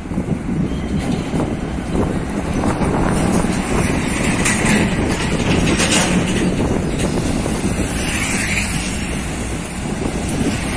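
Heavy diesel container trucks driving up an incline and passing close by, engines running and tyres on the road, with other road traffic.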